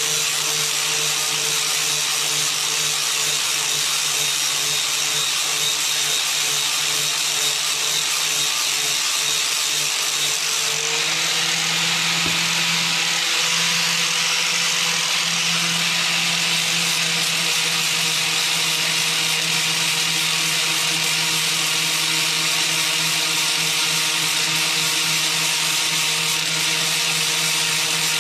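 Power drill running steadily, grinding rust buildup off a snowblower auger shaft, with a constant hum under a high grinding hiss. The pitch shifts slightly about eleven seconds in.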